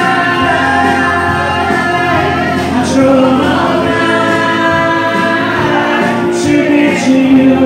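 Karaoke: a man singing into a microphone over a pop backing track played through a PA, with people singing along.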